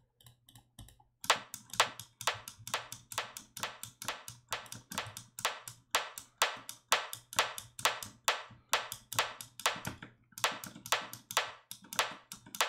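A synthesized rimshot-style percussion hit made by FM synthesis in Ableton's Operator, played back over and over at about four short, sharp hits a second. Each hit carries a brief ringing tail from a layered reverb, and the hits are squashed hard by a glue compressor. The hits start about a second in and pause briefly near the end.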